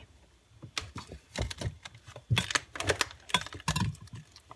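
Hard objects being handled, giving a quick irregular series of clicks and knocks that is sparse at first and grows denser and louder in the second half.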